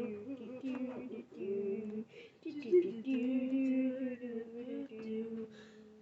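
A person humming a slow wordless tune in held, wavering notes, with a few faint clicks behind it.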